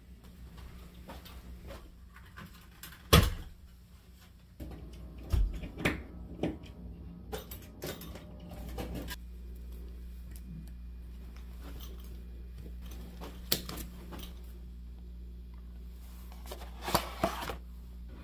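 Scattered knocks and clicks of things being handled, the loudest about three seconds in, over a low steady hum that grows louder about eight and a half seconds in.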